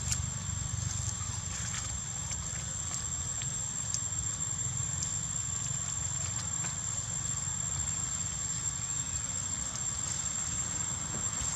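Outdoor forest ambience: a steady high-pitched whine over a low rumble, with scattered faint clicks and rustles from the dry leaf litter where the macaques sit eating.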